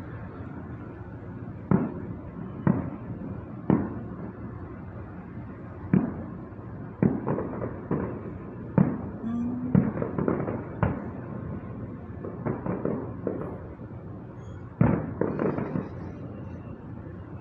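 Distant aerial fireworks going off: a string of sharp booms about a second apart, each trailing off in a short crackle, then a pause of a few seconds before another boom near the end.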